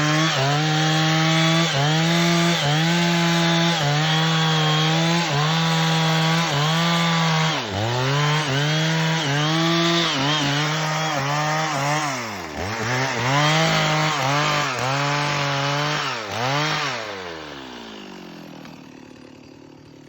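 Stihl two-stroke chainsaw cutting wood at full throttle, its engine pitch dipping briefly about once a second as the chain bites. Near the end the throttle is released and the engine winds down to a low idle.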